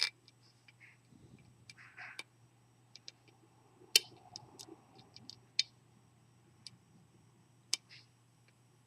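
Small, irregular metallic clicks of a lock pick and tension tool working the pins of a Schlage SC-1 cylinder with security drivers, the sharpest about four seconds in, over a faint steady low hum.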